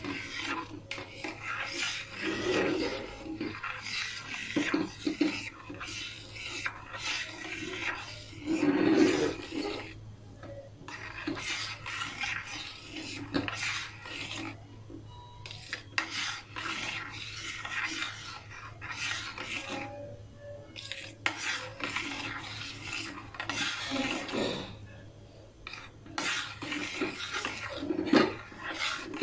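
A utensil stirring and scraping around a pan of mirror-glaze mixture (cream and gelatin) heating on a low gas flame, in irregular strokes, over a steady low hum.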